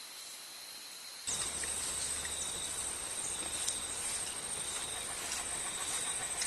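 Steady hiss, then about a second in a louder outdoor ambience with a high, steady insect drone, like crickets, and a few faint clicks.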